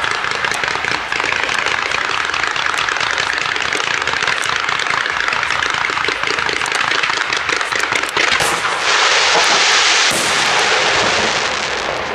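Fireworks display: a loud, dense, continuous barrage of rapid cracks and reports. About nine seconds in, a steady hiss takes over for a second or so before the crackling carries on.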